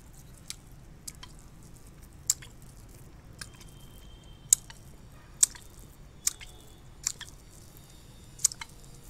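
Wet licking and lip-smacking against a disc of dalgona sugar candy held to the mouth, to soften it around the stamped shape: short, sharp, irregular smacks about once a second, the loudest about halfway through.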